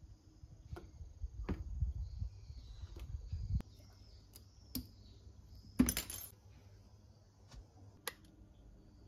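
Scissors and needle-nose pliers clicking against a glass bottle's neck while a plastic ring is worked off it: a series of light, separate clicks and snips, with one louder click about six seconds in.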